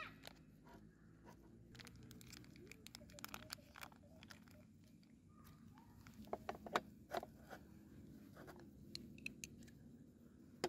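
Quiet handling sounds as bread and a sausage are laid into a metal hot sandwich maker and it is shut: soft rustling with scattered light clicks and taps, the sharpest cluster about six to seven seconds in.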